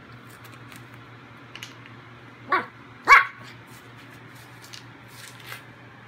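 A puppy barking at her bone: two short, high barks about half a second apart, the second louder.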